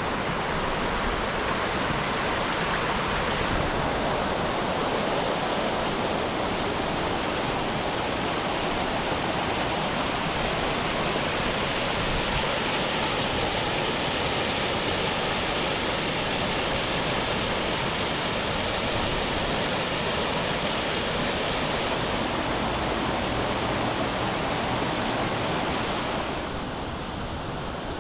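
Water rushing over a small cascading waterfall on a rocky river: a steady, even rush. About a second and a half before the end it turns quieter and duller.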